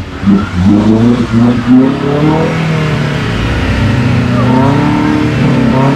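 Offroad 4x4's engine revving hard under load as it drives through deep mud, the pitch surging up and down several times, then held high and slowly rising.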